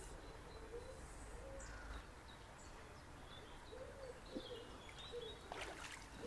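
Faint bird calls and chirps over quiet riverside ambience, with a low wind rumble in the first two seconds and a few brief soft noises near the end.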